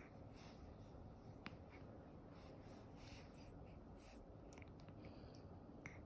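Near silence: a faint steady room hiss with soft scattered rustles and a small click about a second and a half in.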